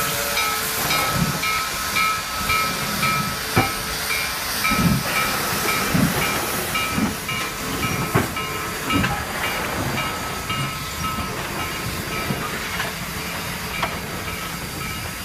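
Steam locomotive sound for a model steam engine starting a train: a steady hiss of steam with a repeating chuff pattern.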